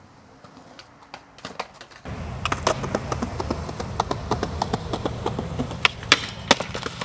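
Skateboard rolling on concrete and a brick ledge: a steady low rumble of the wheels with many sharp clicks as they cross seams and edges. Near the end come a few loud sharp cracks of the board popping and hitting the ground.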